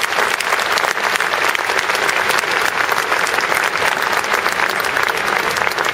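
Large stadium crowd applauding: dense, steady clapping from thousands of supporters.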